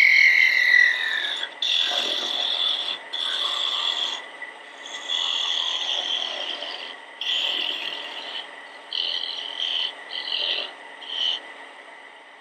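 Straight-edge parting tool cutting into a small wooden spigot spinning on a wood lathe, parting off a turned bobble. It makes a high-pitched scraping in a series of strokes about a second long with short breaks, the strokes getting shorter and fainter near the end as the cut goes through.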